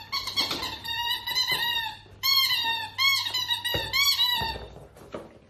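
Squeaky rubber toy squeaked over and over as a dachshund puppy chews it: a quick run of short, high squeaks in several groups, stopping near the end.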